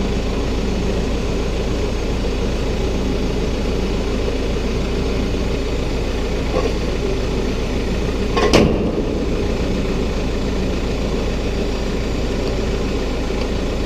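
Tractor diesel engine idling steadily, with a single sharp knock about eight and a half seconds in.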